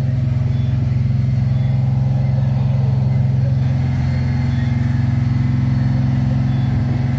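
Fishing boat's engine running steadily aboard, a constant low drone with no change in pitch.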